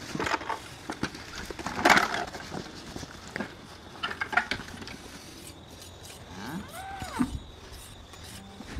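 Scattered knocks and rustles, the loudest about two seconds in, and one animal call that rises and falls in pitch about seven seconds in.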